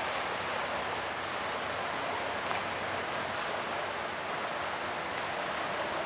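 Fountain water splashing, a steady even rush of falling spray with no breaks.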